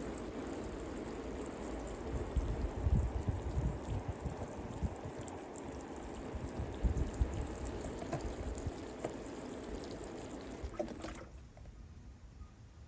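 Water from a hose spraying and splashing onto a rubber pond liner, a steady hiss with some low buffeting on the microphone. The water cuts off suddenly about eleven seconds in.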